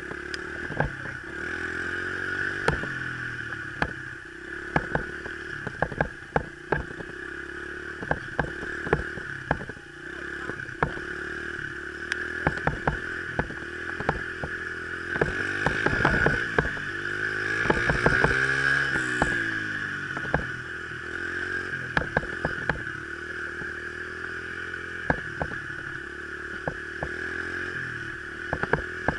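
Honda XR70's small four-stroke single-cylinder engine running under way, its pitch rising and falling with the throttle and climbing highest a little past the middle. Many sharp clicks and rattles are heard throughout.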